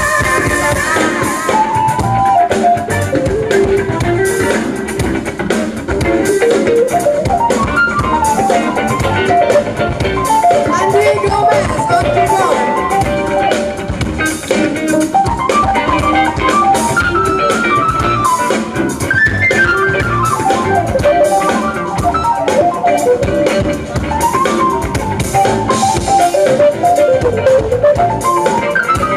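Live band playing an instrumental passage with no vocal: drum kit and electric guitars, with a lead line of quick runs that climb and fall.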